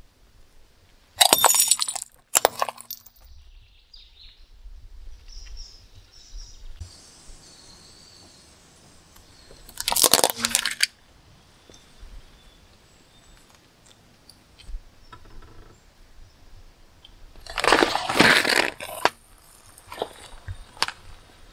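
A car tyre rolls over and crushes objects one after another. First, a glass dish shatters with two sharp cracks about a second apart. A small plastic toy then crunches under the tyre around the middle, and near the end a cream-filled cup is squashed with a longer crackling crunch.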